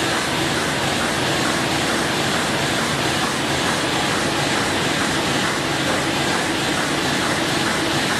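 Komori Lithrone LS640 six-colour sheetfed offset press running in production, a steady, even machine noise with no distinct beats or changes.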